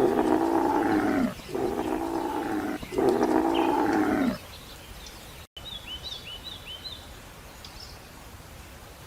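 A large animal calling three times in a row, each a long, loud pitched call that bends down in pitch at its end. After a sudden cut, a small bird chirps a quick run of short falling notes over steady outdoor background noise.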